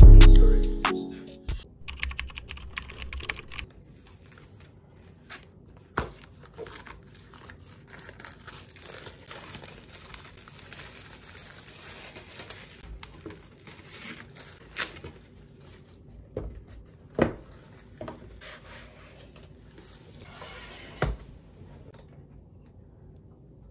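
Background music cuts out in the first second or two, then quiet handling sounds of a new stretched canvas being unwrapped: crinkling and tearing of its packaging and small clicks. A few sharp knocks come as the canvas is fitted onto a wooden easel, the last near the end.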